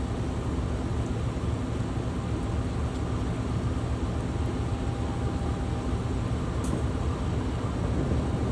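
Steady low rumble of a train running, with a faint hum over it.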